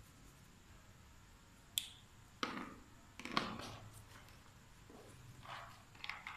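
A small sharp click about two seconds in, then two heavier knocks with a short clatter less than a second apart, and a few softer knocks near the end: a felt-tip marker being capped and put down among other markers, with handling noise.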